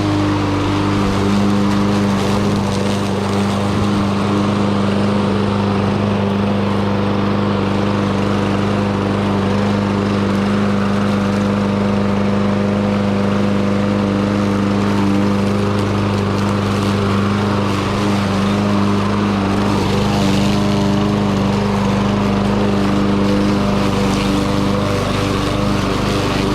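Troy-Bilt TB110 push lawn mower's small engine running steadily at a constant speed, now that it starts after a new spark plug, air filter and fresh gas.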